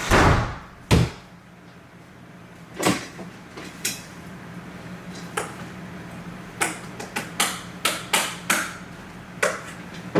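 A series of knocks and bangs: a heavy bang at the start, a second sharp bang about a second in, then irregular sharper knocks that come faster over the last few seconds.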